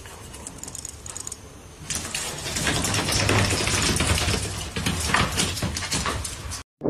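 Rapid, dense clicking and rattling from a hand-held cylindrical gadget, growing louder about two seconds in.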